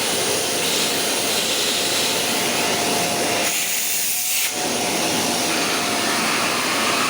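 Philips PowerPro FC9352/01 bagless cyclonic vacuum cleaner (1900 W) running at full suction, a loud, steady rush of air with a faint steady whine. About halfway through, its lower sound drops away for about a second while the hiss brightens, then it returns to the steady rush.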